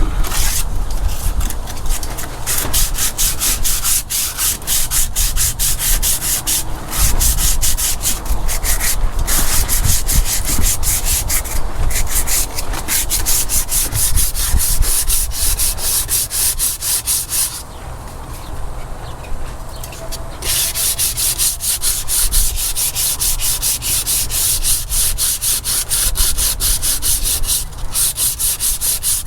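Sandpaper rubbed in quick, even back-and-forth strokes over the boat's inside cap, smoothing it for paint. The strokes stop for a few seconds a little past halfway, then resume.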